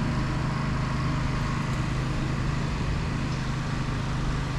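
Diesel train engine idling, a steady low hum that stays even throughout.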